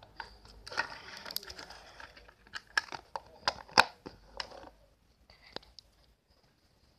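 Hands squishing slime with crackling, then a series of sharp clicks and taps from a clear plastic slime tub being handled and set down, the loudest just before four seconds in.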